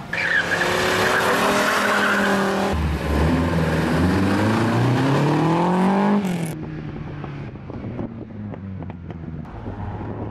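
Classic rally cars' engines revving hard as they accelerate away, pitch climbing through the gears, with a high squeal over the engine in the first couple of seconds. The loud run stops abruptly about six seconds in and gives way to a quieter car engine running steadily.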